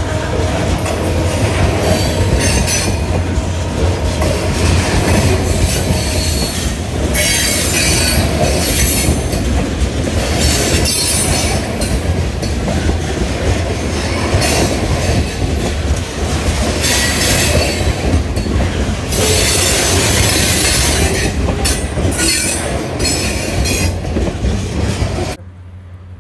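Covered hopper cars of a Hartwell Railroad freight train rolling past close by, their wheels rumbling steadily on the rails. High-pitched wheel squeal rises again and again. The sound cuts off suddenly near the end.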